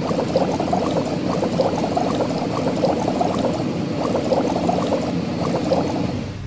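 Cartoon sound effect of frothy soap bubbling as a spinning car-wash brush foams a car: a dense, steady stream of little popping bubbles that stops abruptly near the end.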